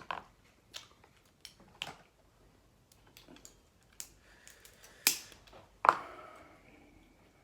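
Snow crab shells cracking and snapping as the legs are broken open by hand to get at the meat: irregular sharp cracks, with two louder snaps about five and six seconds in.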